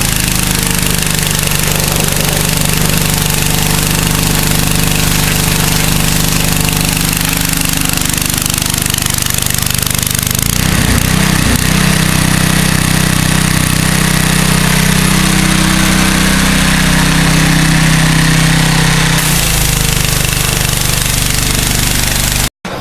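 Pressure washer running steadily under load, a loud continuous machine hum with the hiss of the water jet on top; the hum wavers briefly about halfway through.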